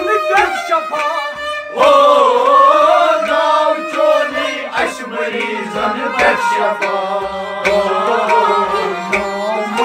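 Kashmiri Sufi music: harmonium, sarangi and rabab playing with low thumps from a clay-pot drum. About two seconds in a male voice comes in loudly, singing the kalam over them.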